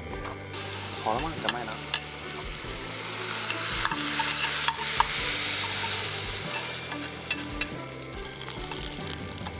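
Food sizzling as it fries in a pan and is stirred, with a few sharp clicks. The sizzle grows louder through the middle and eases off toward the end.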